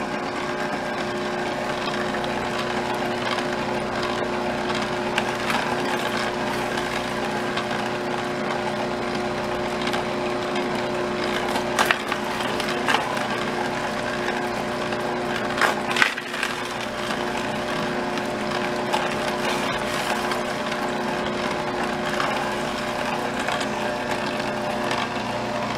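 Electric vertical slow juicer running steadily with a constant motor hum, its auger crushing carrot, apple and other fruit pieces. There are a few sharp cracks near the middle.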